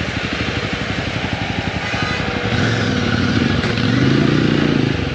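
Motorcycle engine running as the bike rides, with dense, rapid firing pulses. About halfway through the engine note grows louder and rises in pitch as the bike pulls ahead.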